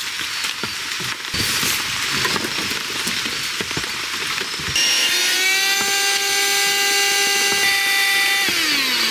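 Fabric rustling as a blanket is shaken and folded. From about five seconds in, a small handheld electric air pump runs on the sleeping pad's valve, deflating it for packing, with a steady motor whine that winds down with a falling pitch near the end.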